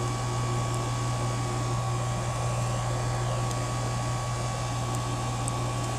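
Bryant rooftop air-conditioning unit running steadily in cooling, its compressor and condenser fan making a constant hum with a thin steady tone above it. The unit is working normally again, with about 10 degrees of superheat and 3 degrees of subcooling.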